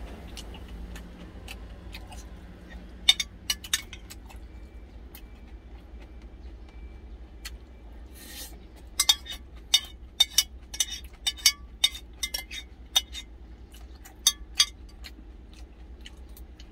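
Metal spoon clinking and scraping against a glass food container as the last of the rice is scooped out: a few sharp clinks about three seconds in, then a quick run of clinks from about nine seconds on. A steady low hum underlies it.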